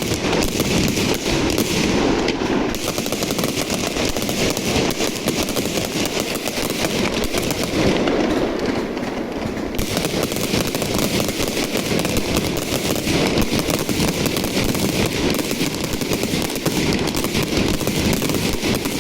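Fireworks going off in a dense, continuous rapid-fire barrage of bangs and crackling, with no break.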